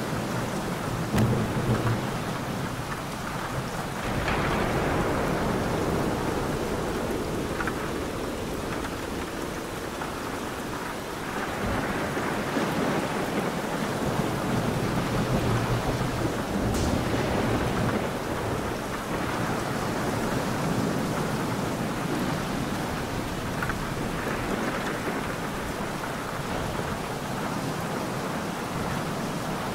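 Steady rain with thunder rolling in again and again, low rumbles swelling up every several seconds over the constant patter.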